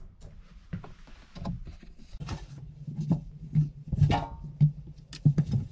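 Clothes being loaded by hand into a front-load washer's stainless drum: fabric rustling with irregular soft thumps and knocks against the drum, busier and louder in the second half.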